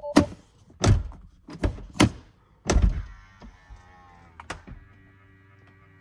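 Tesla door with an aftermarket Hansshow soft-close latch: several sharp clunks as the emergency release is pulled and the door is worked, then a steady motor whir for about three seconds as the soft-close latch pulls the door shut.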